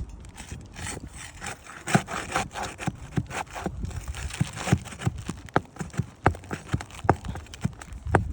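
Footsteps scuffing and scraping over a gritty surface, with irregular knocks about every half second.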